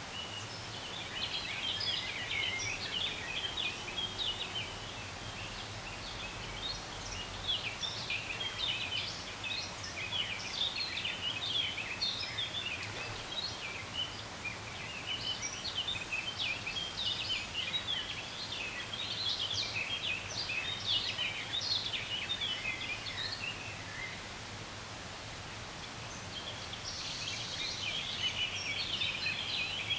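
Birds chirping and twittering: many short, high calls overlapping in a dense chatter, easing off for a couple of seconds near the end before picking up again.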